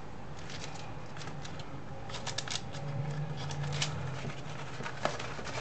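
Diamond-painting canvas and its plastic cover film crinkling and crackling as it is rolled up by hand, in scattered bursts, with a sharp tap about five seconds in.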